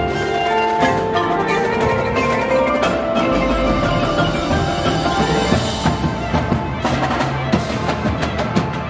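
Indoor percussion ensemble playing: marimbas and other mallet keyboards over many quick drum strokes from the marching battery. A deep low note comes in about three seconds in.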